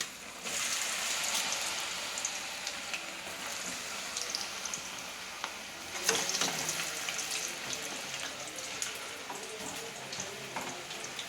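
Cornflour-coated potato French fries deep-frying in hot oil: a steady sizzle with small crackles, surging sharply about half a second in and again about six seconds in.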